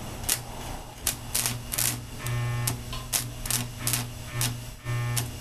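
Arc welder striking an arc with a 6013 stick electrode on steel wire: irregular sharp crackles and pops with a few short buzzes as the arc catches and sputters, over a steady low hum.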